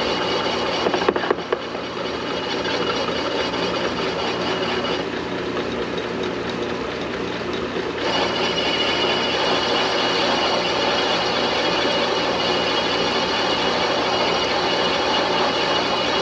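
Metal lathe running and taking a light cut on a brake hub, a steady machine drone with a high hiss above it. A few sharp clicks come about a second in. The high part of the sound fades from about five seconds in and comes back stronger at about eight seconds.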